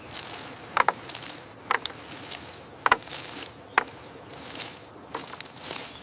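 Footsteps, roughly one a second, each a soft swish with a sharp tap.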